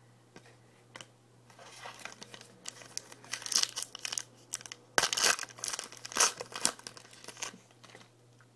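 Trading-card pack wrapper crinkling and tearing as it is opened, in a run of rustling bursts that are loudest in the middle, with a sharp click about halfway through.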